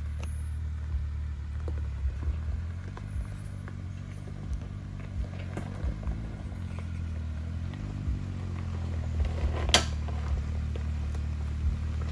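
Off-road vehicle engine running low and steady, with small scattered clicks and knocks and one sharper click about ten seconds in.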